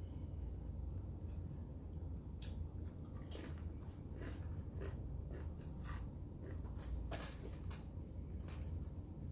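Close-miked chewing of barbecue: irregular wet mouth clicks and smacks, starting about two seconds in, over a steady low hum.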